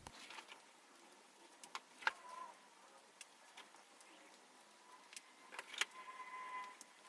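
Handling sounds of an HO-scale model train set and its packaging being unboxed: scattered light clicks and taps, with short squeaky scrapes about two seconds in and again near the end.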